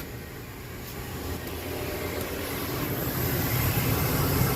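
2004 Lincoln Navigator's 5.4-litre V8 idling steadily, not misfiring, just after a coolant hose replacement and refill; the low hum grows gradually louder.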